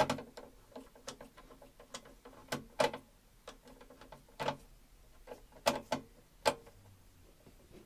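Irregular sharp metal clicks and taps as a hand tool works a small part into place at a lawnmower engine's carburettor, a dozen or so with a few louder knocks.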